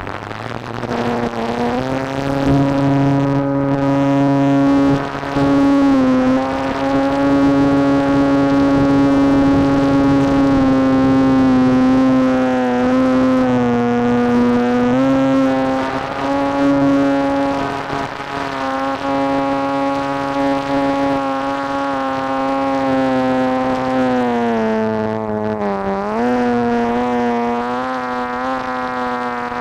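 Electric motor and propeller of an RC airplane in flight: a steady buzzing whine that wavers in pitch and dips briefly near the end.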